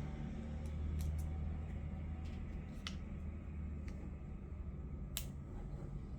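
A handful of light, sharp clicks and taps from handling a watch and its tempered-glass screen protector pieces, the strongest a little after five seconds, over a steady low hum.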